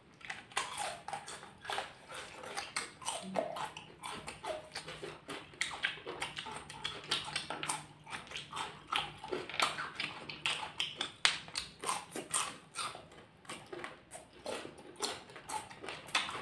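Close-miked eating: bites into a raw cucumber and chewing, heard as irregular crisp crunches and mouth clicks throughout.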